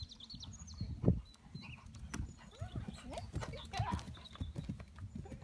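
Hoofbeats of a horse cantering on a sand arena surface, a run of dull thuds that grow busier as the horse passes close, with one louder thud about a second in.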